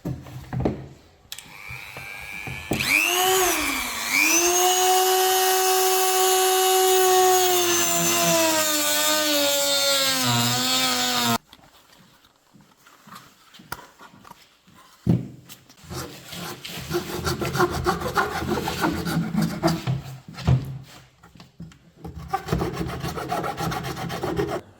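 A power tool cutting the plastic mount: its motor whine dips in pitch as it bites, sags near the end and stops abruptly about eleven seconds in. Irregular scraping and rubbing of the plastic being sawn or trimmed follows.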